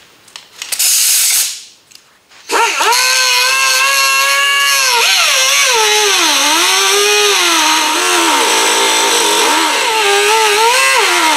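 A hand-held cut-off tool with a partly worn cutting wheel cutting through a car door hinge pin. A short hiss comes about a second in; the tool starts about two and a half seconds in with a steady whine that dips and recovers in pitch as the wheel bites into the pin.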